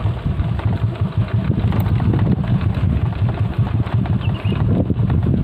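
Motorbike engine running at low revs, with knocks and rattles as it rolls over a rough, rutted dirt track.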